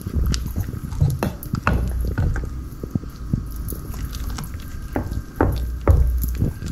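Thick banana bread batter being stirred and folded with a spatula in a glass bowl: irregular wet squelching and slapping strokes.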